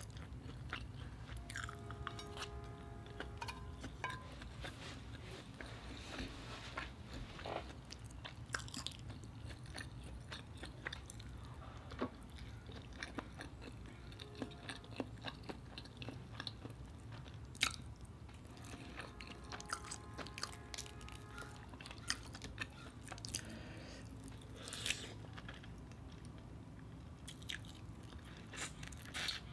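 Mouth sounds of eating: chewing and biting mouthfuls of spicy fried rice, boiled egg and shrimp, with scattered short wet clicks over a steady low hum.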